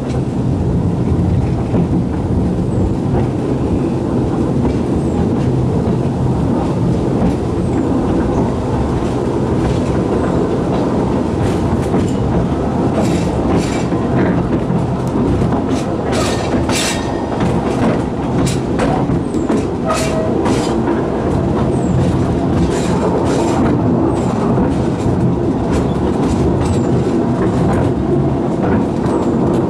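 Narrow-gauge railway carriage running on the rails: a steady low rumble with sharp clicks from the wheels, which come thickest through the middle part.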